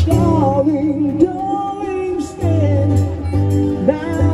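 Busker's amplified live music: a guitar with a sung melody over it, played through an Alto TS312 PA speaker.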